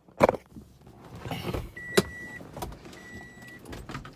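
A car door being handled, with a sharp knock near the start and a few clicks, then the car's warning chime beeping twice, each a steady high beep of about half a second.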